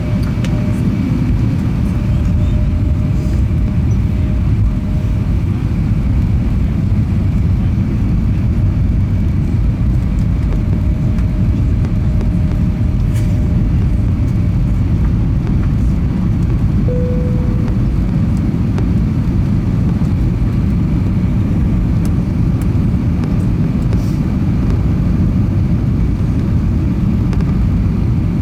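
Airbus A320 cabin noise in flight: a steady, loud low rumble of engines and airflow, with a brief faint tone a little past halfway.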